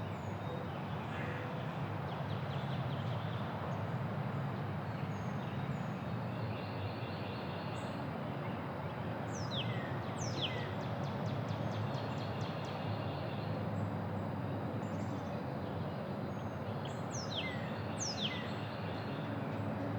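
Quiet neighbourhood ambience: a steady low background hum with small birds calling over it. Two sharp, downward-sweeping whistled notes come about ten seconds in and again near the end, with a quick chattering trill between them and a few faint chirps elsewhere.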